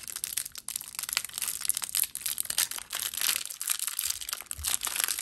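Clear plastic wrapper of a trading-card hanger pack crinkling and crackling as fingers pick at it and peel it open, with a short lull about three and a half seconds in.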